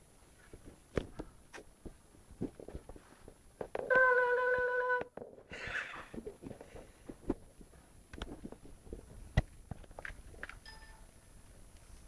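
A cat's paws scrabbling and tapping on a netbook's keyboard, small clicks and rustles, with a steady electronic beep from the laptop lasting about a second, about four seconds in, the loudest sound.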